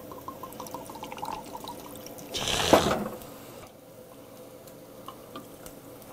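Whisky glugging out of a bottle onto ice in a glass in a quick row of short gurgles, then a loud fizzing hiss of carbonated water lasting about a second, followed by the soda pouring quietly over the ice to make a highball.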